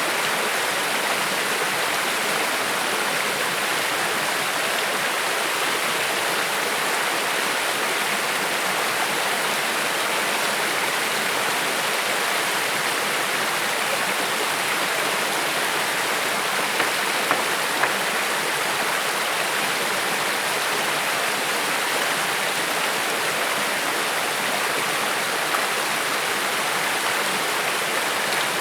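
Creek water flowing, a steady, even rush of running water.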